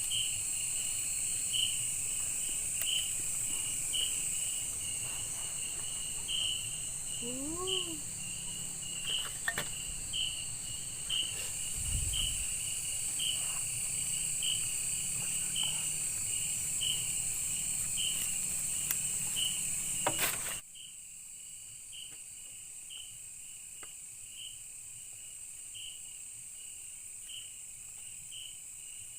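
Night-time insect chorus in rainforest: a steady shrill high drone with a regular chirp repeating a little more than once a second. About two-thirds of the way through, the whole sound drops abruptly to a quieter level while the chirping carries on.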